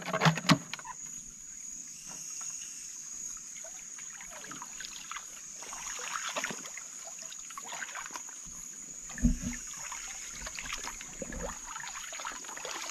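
Steady high-pitched drone of night insects along a stream, with faint trickling water and scattered small ticks and rustles. There are a few sharp clicks right at the start and a single dull thump about nine seconds in.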